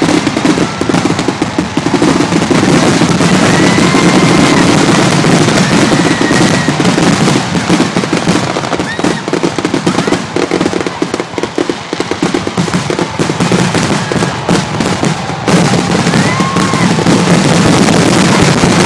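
Aerial fireworks exploding in a dense, rapid barrage, bursts and crackles overlapping with no gaps between them.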